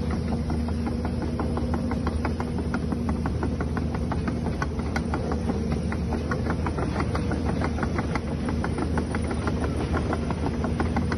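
Huina 1550 radio-controlled toy excavator running as it moves its boom and bucket: a steady mechanical whir with rapid clicking throughout.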